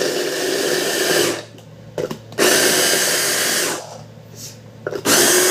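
Electric mini food chopper whirring in short pulses as it minces garlic cloves: it runs until just over a second in, starts again about two and a half seconds in for over a second, and starts once more near the end. Short clicks fall in the pauses.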